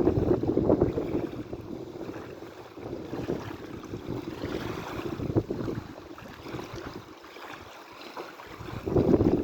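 Sea waves washing in: a surge of water at the start that dies away, then another swelling near the end.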